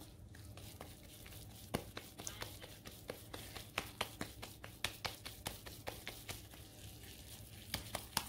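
Hands patting and pressing a moist chicken and chana dal kebab mixture into patties: a run of soft, irregular slaps and pats, a few each second, starting a little under two seconds in.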